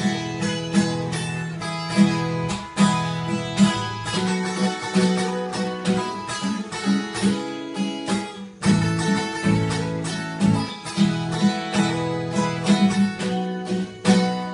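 Two acoustic guitars playing an instrumental passage together, picked and strummed, with no singing.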